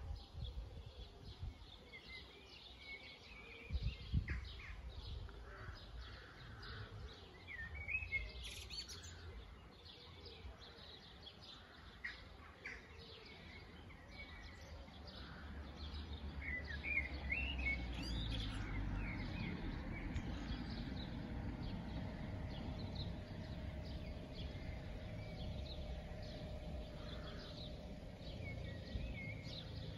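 Birds chirping and singing. From about halfway a low rumble builds up and stays, with a faint steady hum in it.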